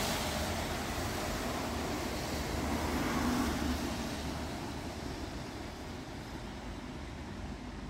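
City street traffic noise: a bus passes close by near the start, and the rumble slowly fades as it moves away, with a second swell about three seconds in.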